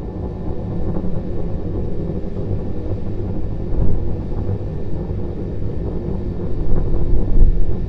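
Starship SN9's Raptor rocket engines firing in climb, two of its three engines running after the planned shutdown of the third, heard from the ground as a distant low rumble that swells and dips.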